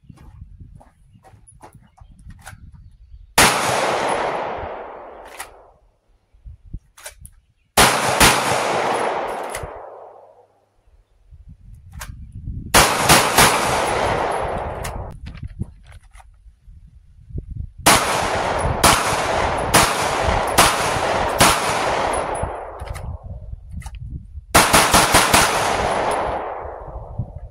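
Smith & Wesson M&P 2.0 Spec 9mm pistol fired: three single shots a few seconds apart, then a string of about five shots roughly a second or less apart, then about five in quick succession near the end. Each shot is followed by a long rolling echo.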